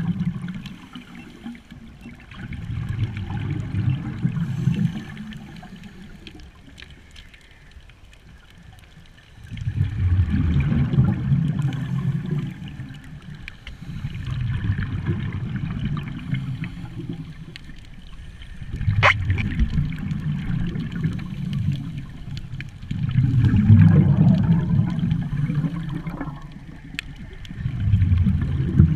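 Scuba diver's exhaled bubbles from a regulator, heard underwater through a camera housing as a deep bubbling rumble that comes in bursts of two to three seconds, about every four to five seconds, with quieter gaps between breaths.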